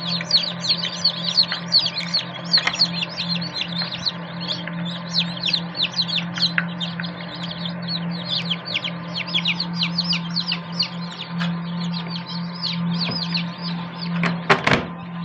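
Newly hatched chicks peeping non-stop, a rapid stream of short, high, downward peeps, over the steady hum of the running egg incubator. Near the end there is a brief loud clatter.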